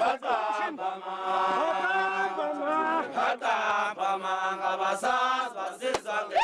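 A group of voices chanting a Zulu song together, several singers holding long notes in unison and breaking off every second or two.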